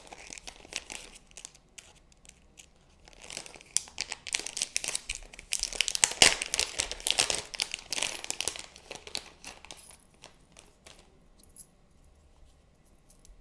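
Small clear plastic packaging bags crinkling and rustling as they are handled and opened, building to the loudest crackle in the middle and thinning to a few faint clicks near the end.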